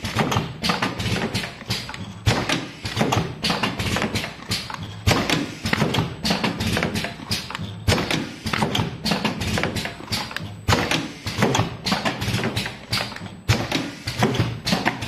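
Automatic cartoning machine running, boxing medicine bottles: rapid, irregular mechanical clacking and knocking, several strokes a second, over a low steady hum.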